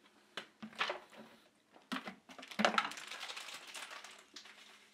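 Plastic protein tub and bottles handled on a kitchen counter: a few knocks and clatters, then a couple of seconds of rustling.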